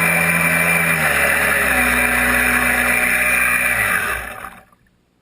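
Radio-controlled jet boat's 3400KV brushless inrunner motor, driving a 3D-printed jet drive through a 2:1 reduction gearbox, running steadily over a dense rush, its pitch shifting a little, then dying away to near silence about four and a half seconds in.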